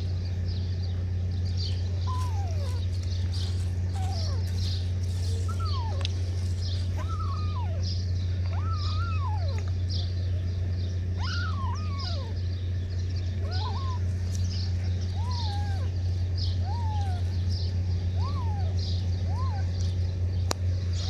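Young kittens mewing over and over, short cries that rise and fall in pitch, one every second or so, over a steady low hum.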